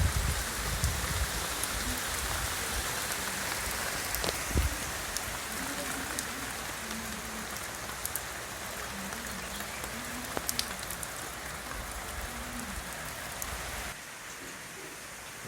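Steady rain falling, an even hiss with scattered sharp ticks of individual drops. It drops a little softer for the last second or so.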